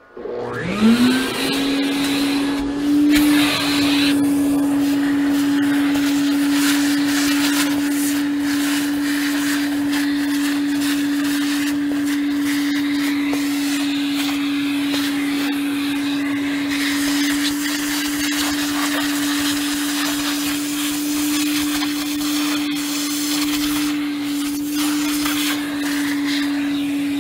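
A shop vacuum switches on, its motor spinning up to a steady whine within about a second. It then runs steadily while its hose nozzle sucks up the sawdust and chips left in freshly CNC-routed lettering, with a rushing, rattling air noise as debris is drawn in.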